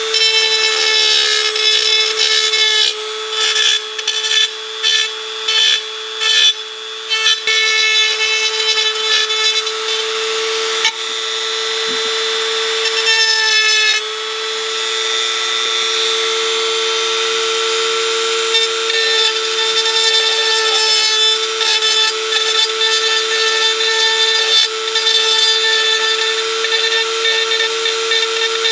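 A high-speed rotary grinder runs with a steady high whine while its bit grinds the cast-aluminum oil pan down to bare metal. The grinding comes in short stop-start passes for the first several seconds, then runs more continuously.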